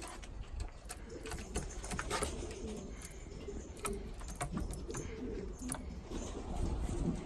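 Domestic pigeons cooing, low calls repeating throughout, with scattered sharp clicks and taps among them.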